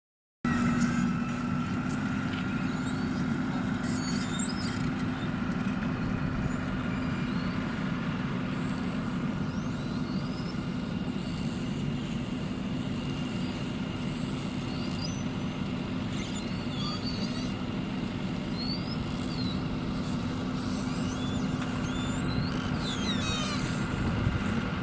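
Heavy vehicle engine running steadily with a constant low hum, short high chirps now and then over it.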